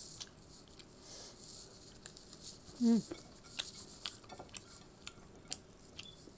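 Quiet eating sounds: soft clicks and taps of fingers working food against a plate, plus small mouth noises. A short hummed "mm" with falling pitch comes about three seconds in.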